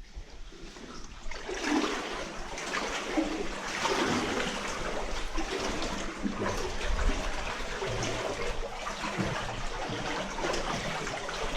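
Water splashing and running in a continuous, irregular wash that swells up about a second in and then stays steady.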